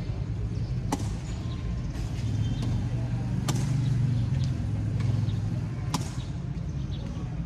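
Tennis balls struck by rackets in a rally: three sharp hits about two and a half seconds apart. A low rumble runs underneath, swelling in the middle and easing off near the end.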